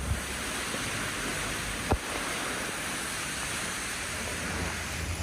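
Steady, even rush of water noise, with one sharp click about two seconds in.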